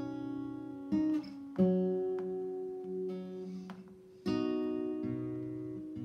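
Acoustic guitar played slowly: chords picked and left to ring out, with new chords struck about a second in, again just after, and about four seconds in.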